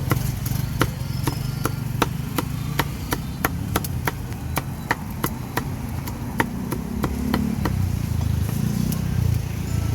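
Knife chopping roast pork on a chopping board in a steady rhythm of about two to three sharp chops a second, over a low rumble of traffic.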